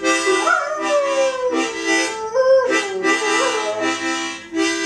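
A dog howling along to harmonica chords. Its howls slide down in pitch and waver, over chords played in short repeated blasts.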